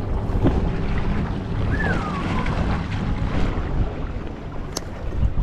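A motorboat's engine drones steadily as a boat passes, with wind buffeting the microphone. A brief falling whistle comes about two seconds in, and a sharp tick near the end.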